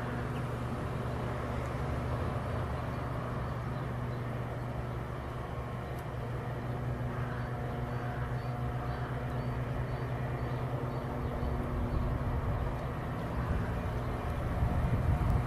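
DB class 143 electric locomotive approaching with its passenger coaches: a steady low electric hum over rolling noise, growing louder towards the end as it draws nearer.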